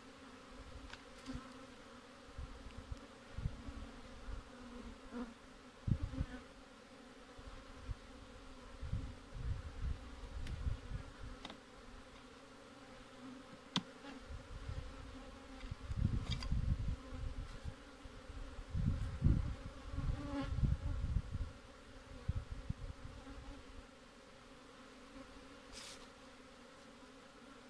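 A swarm of honeybees buzzing steadily around an opened hive, a constant hum. Low rumbles from handling or wind on the microphone come and go, loudest in the middle, with a few sharp clicks as the hive frames are worked.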